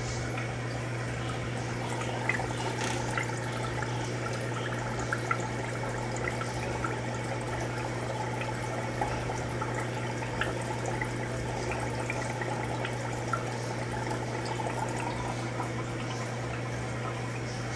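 Aquarium water bubbling from a rising stream of air bubbles, with small pops scattered throughout, over a steady low hum.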